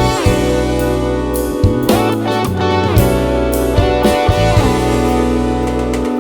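Instrumental band music: electric guitar playing over held bass notes and a drum kit.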